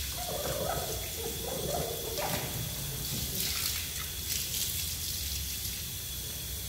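Water running steadily while a car is washed by hand.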